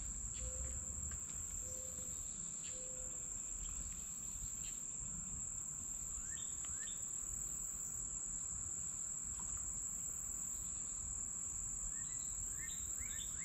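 Steady, high-pitched chorus of summer insects, with a few short bird chirps about six seconds in and again near the end.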